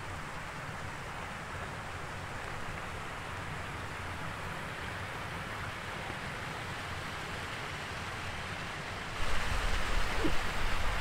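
Steady rush of a mountain stream. About nine seconds in, wind starts buffeting the microphone with a louder, uneven rumble.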